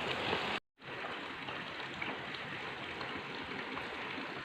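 Steady hissing noise with faint scattered crackles, broken by a brief total dropout a little under a second in.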